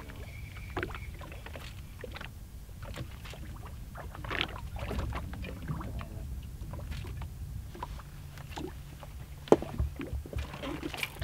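Water lapping at a fishing boat's hull over a steady low rumble, with scattered light clicks and knocks of gear on the boat, and one sharp knock about nine and a half seconds in.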